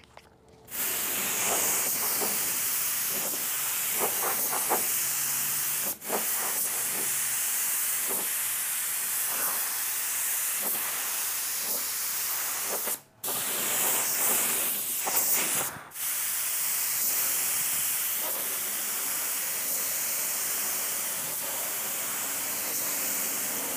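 Compressed air hissing steadily through an R500 low-volume, low-pressure spray gun as it sprays 2K urethane primer at about 20 PSI. The trigger is let off briefly about six seconds in, and again around thirteen and sixteen seconds.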